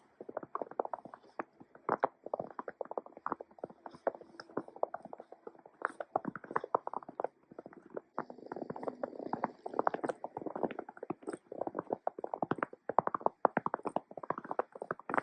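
Hiking boots crunching through fresh snow at a steady walking pace, a dense, irregular run of crunching steps.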